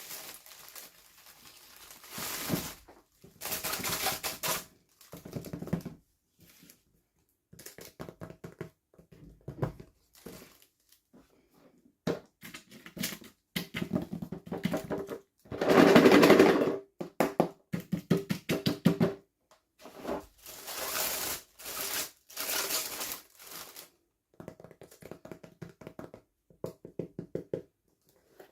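Toy packaging being handled and opened: plastic crinkling and tearing with small clicks and taps, in irregular bursts, loudest about halfway through.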